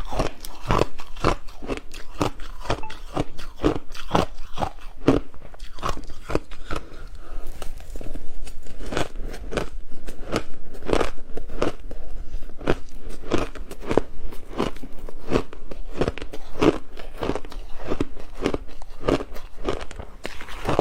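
Frozen matcha ice being bitten and chewed: a steady run of sharp crunches, about two to three a second.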